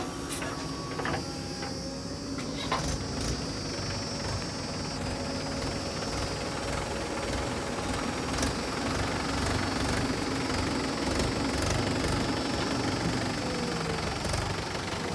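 Diesel engines of a JCB 3DX backhoe loader and a Mahindra 575 DI tractor running steadily at close range.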